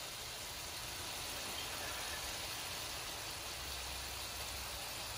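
Steady, even hiss of food cooking on the stove.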